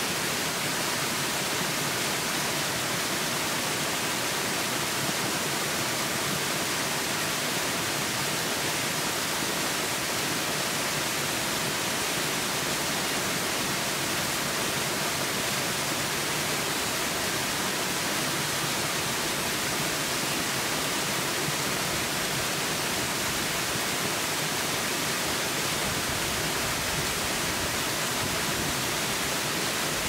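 Small waterfall in full rainy-season flow, water pouring over rocks into a pool: a steady rushing hiss that does not change.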